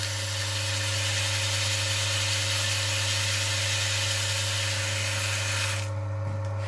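Electric motor of an oil friction test machine running with a steady hum while the spinning test roller is cleaned by hand, a rubbing hiss that stops near the end.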